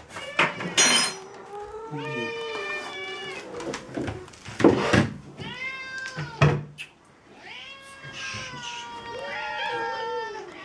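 Domestic cats meowing for their food at feeding time: long, drawn-out meows one after another, overlapping near the end. A few sharp knocks come in between.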